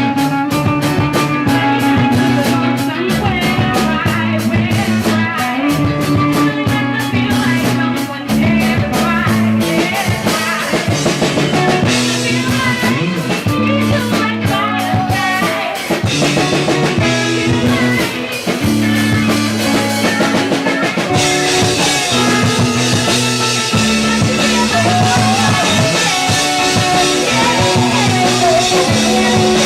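A live band playing an improvised rock jam: a drum kit keeping a steady beat under guitar, with a repeating bass line.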